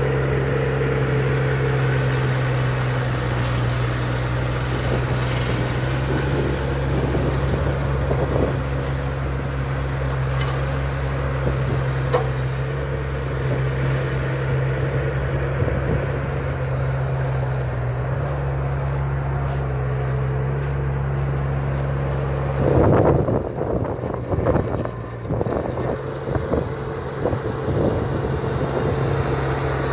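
An NT30 3-ton mini excavator's engine runs steadily while the boom and bucket are worked. From about three-quarters of the way through there is a few-second spell of louder, uneven rough noise over the engine.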